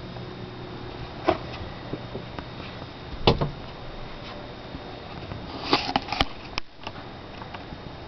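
A male northern cardinal striking the window glass, a series of sharp knocks and taps: one about a second in, the loudest about three seconds in, then a quick cluster around six seconds. It is attacking its own reflection in the mirrored glass, which the owners take for defending its territory from 'the other cardinal'.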